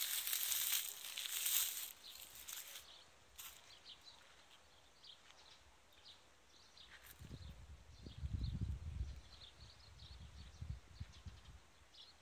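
Outdoor garden ambience: a rustling hiss for the first few seconds, faint high chirps scattered throughout, and irregular low rumbling buffets on the microphone from about seven seconds in.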